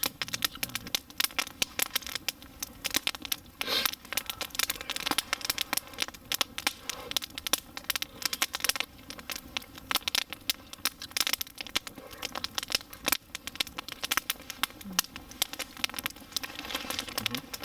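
Wood campfire crackling, with dense irregular pops and snaps.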